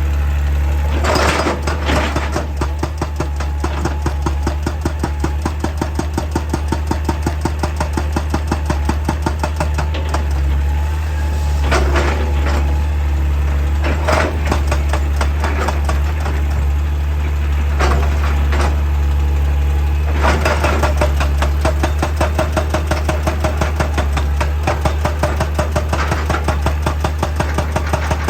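Heavy machine engine running steadily with a low drone and a fast, even pulse, with a few louder clunks or scrapes along the way.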